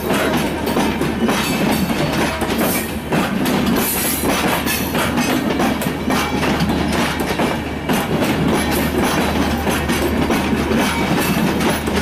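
Bangladesh Railway Intercity passenger coaches rolling past close by, the wheels clicking steadily over the rail joints under a continuous rumble.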